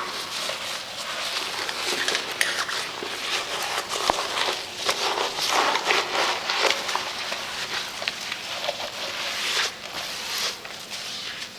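Rubber-gloved hand scrubbing a porcelain urinal bowl: irregular rubbing and wiping with scattered sharp clicks.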